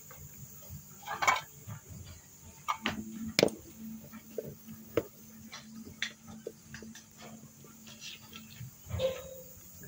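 A raccoon feeding at steel bowls: irregular clicks, taps and knocks of its paws and the food against the metal, the loudest knock about three and a half seconds in.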